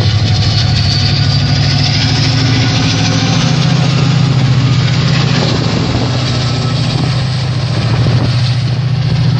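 DRS Class 68 diesel-electric locomotive 68026 passing close at low speed, its V16 Caterpillar engine a loud, steady deep drone. A faint high whine rises over the first three seconds.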